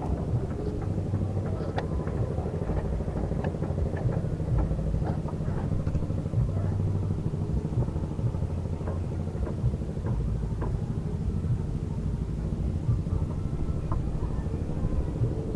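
A small engine running steadily with a low rumble, with scattered light clicks and taps over it.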